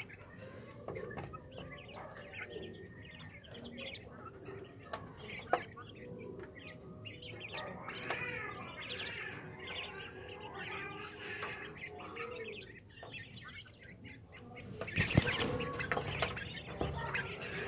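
A caged flock of Japanese quail chirping and calling softly, with scattered sharp clicks. About fifteen seconds in, a louder burst of wing flapping as a bird flutters in the cage.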